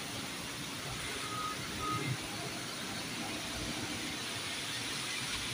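Heavy rain pouring steadily, a dense even hiss. Two short high beeps sound about a second and a half in.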